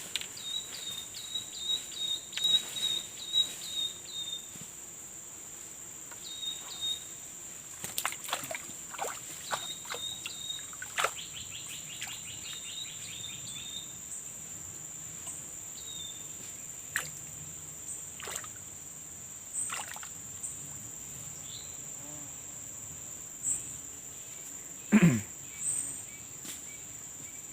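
Swamp ambience: a steady high insect drone, with runs of quick, evenly repeated chirps that come and go. Scattered clicks and knocks of handling, and near the end one loud sharp sound that sweeps down in pitch.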